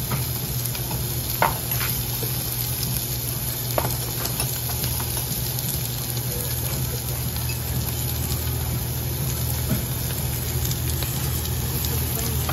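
Pork belly slices sizzling steadily on a hot barbecue grill plate, over a low steady hum, with a couple of short sharp clicks in the first few seconds.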